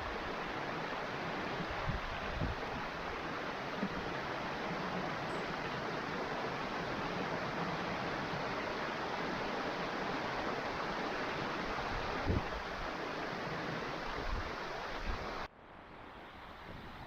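Waterfall on a moorland stream, a steady full rush of falling water, with a few brief low thumps. About fifteen seconds in it drops suddenly to a quieter, duller rush.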